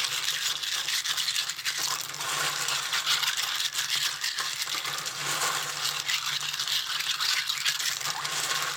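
Asari clams rubbed together by hand in a bowl of water: a continuous clatter and scrape of shells grating against one another as they are scrubbed to rinse off sand.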